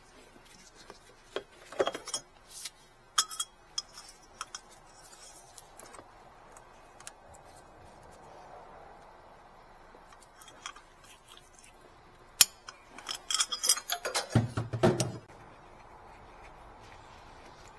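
Metal hand tools and parts clinking and clicking: a few sharp clicks near the start, then a dense clatter of metal on metal about two-thirds of the way through, ending with a dull knock.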